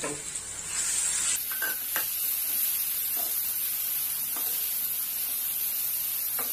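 Freshly chopped tomatoes sizzling in hot oil in a frying pan, a steady hiss that grows stronger about a second and a half in, while a wooden spatula stirs them with a few light knocks against the pan.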